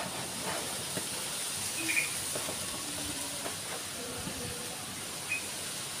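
Strong wind rushing through the trees, a steady hiss.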